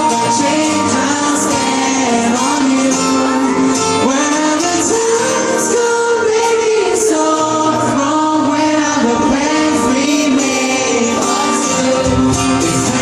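Live pop band playing a song with sung vocals, heard as recorded from the audience.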